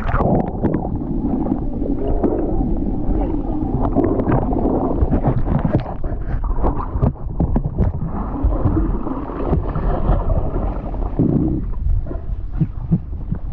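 Muffled water gurgling and sloshing with many small clicks and knocks, the high frequencies dulled as though heard through water.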